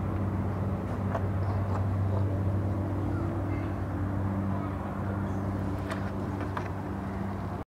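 A steady low hum with a few faint clicks as wiring connectors are worked into a car's door-switch panel by hand.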